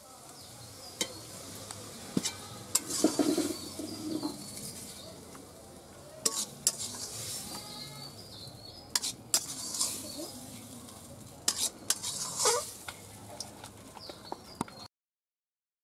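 Metal spatula stirring and scraping a vegetable curry in a metal wok, with a steady sizzle and sharp clinks of the spatula against the pan. The sound cuts off abruptly near the end.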